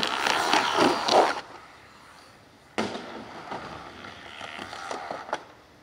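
A skateboard drops in on a mega ramp, its wheels rolling loudly down the roll-in for about a second and a half. Fainter rolling returns abruptly about three seconds in, with a sharp click near the end.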